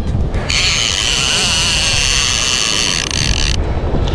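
Fishing reel's drag screaming as a hooked shark pulls line off, a high, even buzz over a low rumble. It breaks off briefly just after the start, then runs again and stops about three and a half seconds in.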